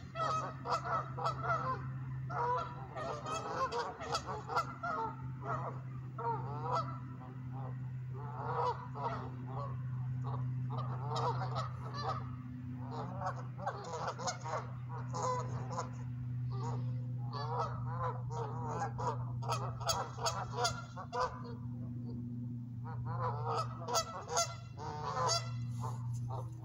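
Geese honking again and again in bouts of a few seconds, over a steady low hum.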